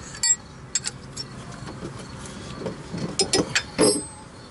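Metal clicks and clinks of a chrome socket and loose hardware being handled around an exhaust manifold, a few single clicks and then a quick run of knocks and rattles near the end, the loudest of them just before the end.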